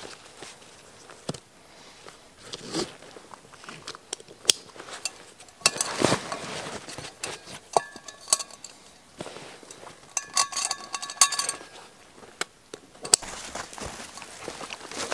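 A loaded Savotta Jaakari backpack being closed and strapped up by hand: scattered clicks and rustles of straps and buckles, with two short runs of light metallic clinking, about halfway through and again a little later.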